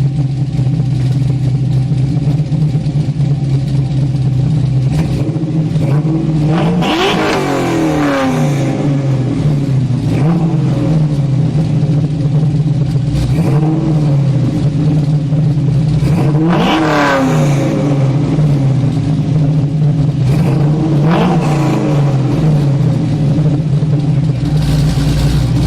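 Camaro engine idling through a 3-inch true dual exhaust with an X-pipe, Flowmaster 40 mufflers and two added resonators, blipped several times in quick revs that rise and fall back to a lumpy idle.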